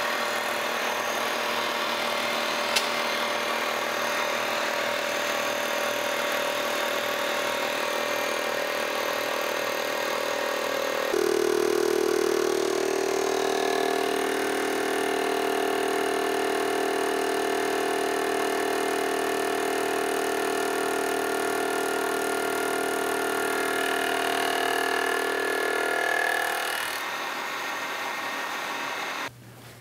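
Vertical milling machine running a 60-degree dovetail cutter through a cast iron gib: a steady machine hum with several held tones under the noise of the cut. The tone changes abruptly about a third of the way in, and the sound cuts off suddenly just before the end.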